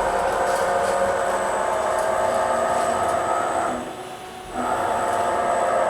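Servo-driven Z axis of a Campbell 750 vertical universal cylindrical grinder jogging at full jog rate, a steady pitched motor whine. It stops briefly near four seconds, then starts again for the move back the other way.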